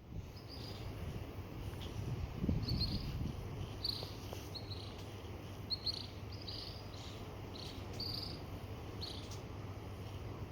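Short high chirps repeating irregularly over a steady low hum and outdoor background noise, with a brief low rumble about two and a half seconds in.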